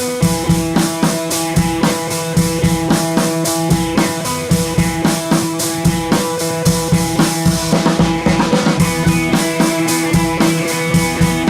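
Background rock music with a steady drum beat and sustained guitar or synth tones.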